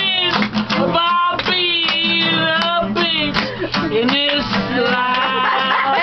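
Live singing with a strummed guitar.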